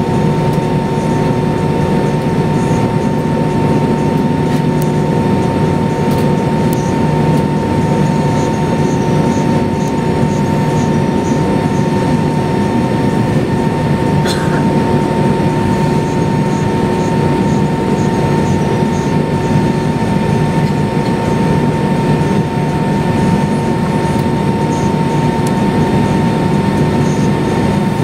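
Airbus A320's IAE V2527 turbofan engines at taxi power, heard from inside the cabin over the wing as the airliner rolls along the taxiway: a steady loud drone with a steady high whine over it.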